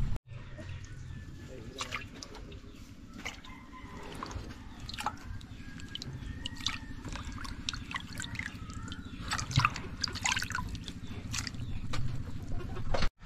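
Water dripping and splashing in a basin as hands move pieces of cut tuna and its head around in it, with scattered small drips and sloshes over a steady low hum.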